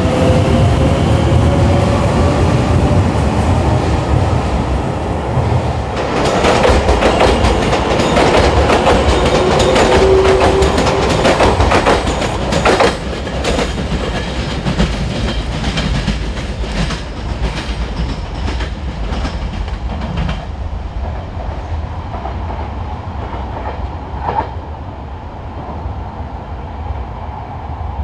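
Train running past on the rails, its wheels clacking rapidly over rail joints with a faint whine from its drive. The clatter is loudest in the middle, then it thins and dulls as the train draws away.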